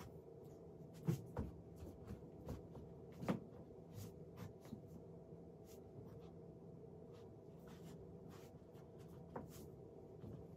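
Scattered soft thumps and taps of feet stepping and shifting on the floor, two of them louder, about a second in and about three seconds in, over a faint steady hum.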